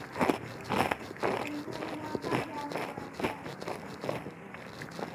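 Close-up chewing of crisp fried food: a run of crunches about twice a second, loudest in the first second and a half and growing fainter as it is chewed down.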